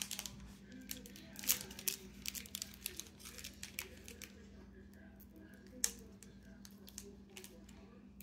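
Foil trading-card pack wrapper crinkling and crackling as someone works at tearing it open, the crackles coming thick and fast for the first few seconds and then thinning out to scattered clicks.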